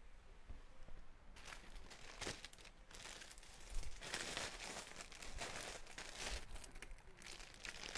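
Rustling and crinkling as a garment is handled and folded by hand, starting about a second and a half in, in irregular strokes that are loudest around the middle.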